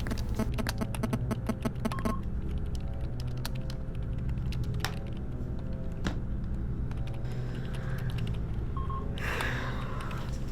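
Typing on a computer keyboard: a quick run of key clicks for about two seconds, then scattered single keystrokes over a steady low hum.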